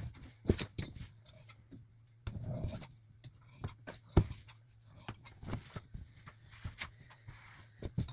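Steel ruler and sweatpant fabric handled on a worktable while a hem line is measured and marked: scattered sharp clicks and taps from the ruler, with soft rubbing of fabric and ruler in between, including a short stretch of rubbing a little over two seconds in.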